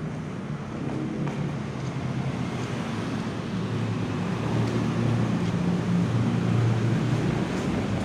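A motor vehicle on the move: a steady low engine hum with road and wind noise, growing louder from about halfway through.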